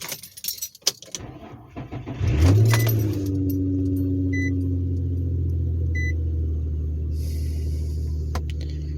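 Keys jangle, then an Infiniti G35's 3.5-litre V6 cranks, catches about two seconds in with a brief flare of revs, and settles into a steady idle. The idle runs without the cylinder 5 misfire after a new coil pack and spark plug. Two short electronic beeps sound during the idle.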